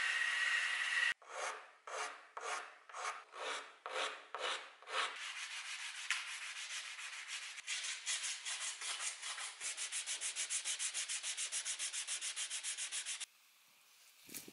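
A wooden knife handle clamped in a vise being hand-sanded: slow rubbing strokes about two a second, then a fast run of about eight strokes a second that stops abruptly near the end. It opens with about a second of steady high whine from an electric rotary polisher, which cuts off sharply.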